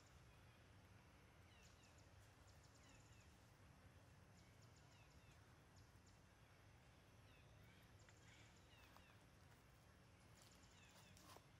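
Near silence: faint outdoor ambience with scattered short, high chirps and brief high rattling trills, and a small click near the end.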